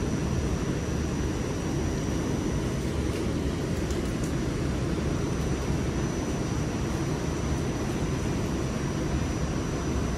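Steady rumble and hiss inside a Staten Island Railway subway car, with a thin high-pitched whine held throughout.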